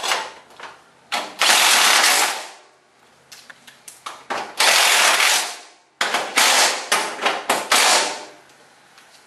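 Cordless impact driver hammering screws in, in three runs of one to two seconds each with short pauses and a few clicks between them.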